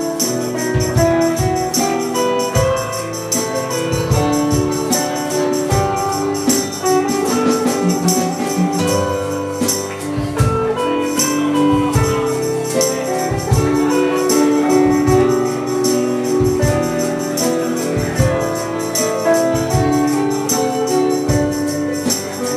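Instrumental break of a pop ballad, with no singing: sustained chords and a melody over a steady beat, with bright high percussion ticking along.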